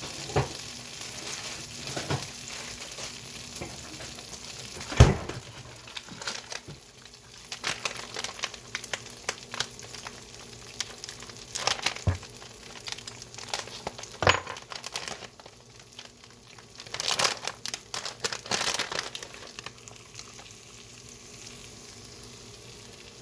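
Kitchen handling sounds: scattered sharp knocks, the loudest about five seconds in, and a burst of rustling and clattering around seventeen to nineteen seconds, as a cheese pack is opened and chaffle ingredients are laid out, over a faint steady sizzling hiss.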